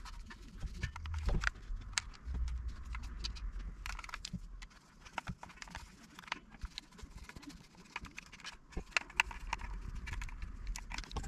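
Small screws being driven back into a plastic toy's casing with a small screwdriver: irregular light clicks and taps with handling knocks.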